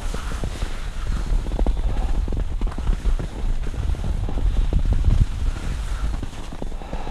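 Skis sliding and chattering over uneven, sun-cupped spring snow, with scattered knocks and scrapes. Wind buffets the camera's microphone as a low rumble throughout.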